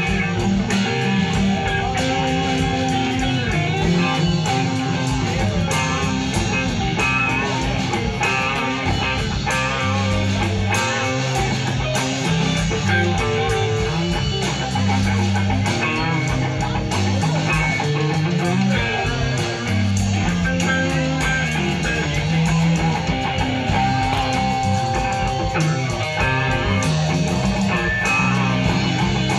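A live band playing an instrumental passage: electric bass guitar and two guitars playing together at a steady level.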